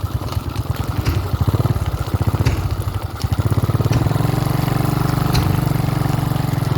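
Small motorcycle engine pulling through sticky mud, its firing pulse rapid and even. About halfway through it picks up revs and holds a steadier, higher note.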